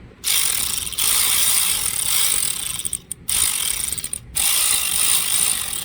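Socket ratchet clicking in fast runs while a 17 mm socket turns out a motorcycle engine's oil drain plug, with two short pauses.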